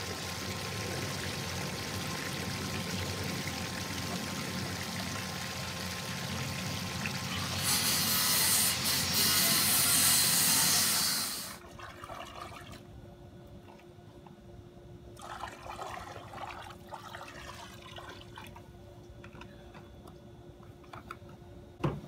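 Water rushing and pouring steadily, growing louder for a few seconds before stopping abruptly about eleven seconds in. After that a much quieter stretch, with a faint steady hum.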